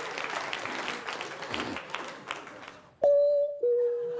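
Audience applause dying away, then a mouth-made imitation of an airliner's flight-attendant call chime: a sudden clean high tone about three seconds in, stepping down to a lower held tone, like a two-note ding-dong.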